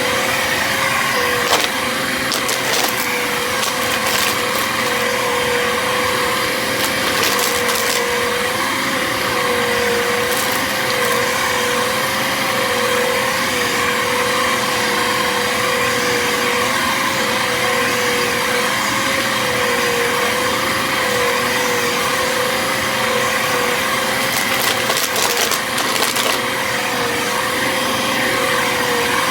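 Bissell vacuum cleaner running steadily with a constant motor whine, with scattered crackles and clicks as it sucks up foil confetti in a crunch mess test.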